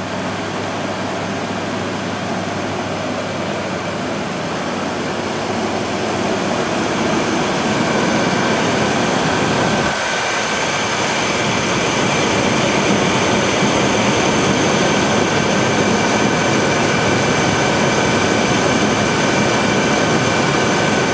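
Chevrolet S10 pickup engine idling steadily, with a faint high whine riding over it. It is running cold with a motor flush mixed into the old oil before the oil is drained.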